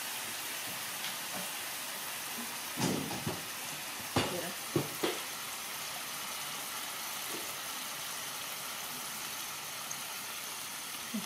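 Shrimp frying in hot oil in a wok, a steady sizzle, with a few sharp knocks about three to five seconds in.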